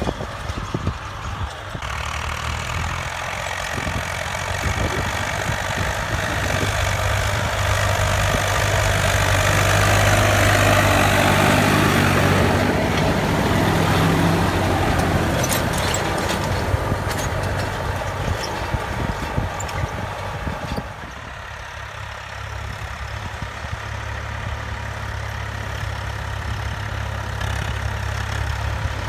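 Farm tractors' diesel engines running under load while pulling a cultivator and disc harrow through tilled soil, with a steady low engine hum. The noise swells louder through the middle and drops back about two-thirds of the way in.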